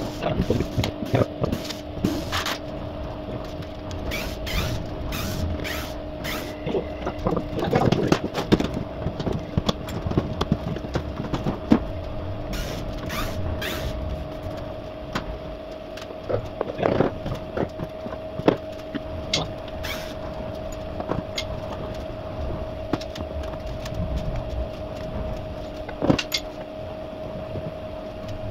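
Metal clinks and clanks of hand tools working on a car's front suspension and brake hub, in irregular bursts of sharp knocks. A steady low hum runs underneath throughout.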